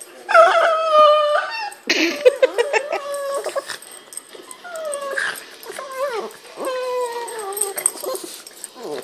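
A dog whining and yowling in a string of drawn-out, pitch-sliding calls, most of them falling, with a short sharp noisy burst about two seconds in; these are play vocalisations during rough play between a Boston terrier and a pug.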